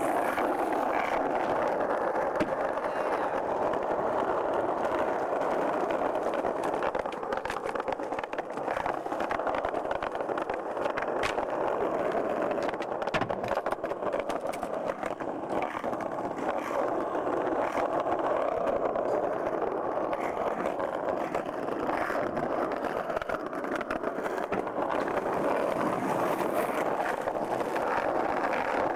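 Skateboard wheels rolling over concrete paving in a continuous rumble, with a few faint clacks of the board.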